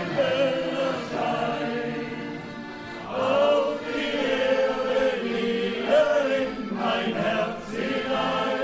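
Many voices singing a folk song together in a group sing-along, with long held notes moving from one pitch to the next.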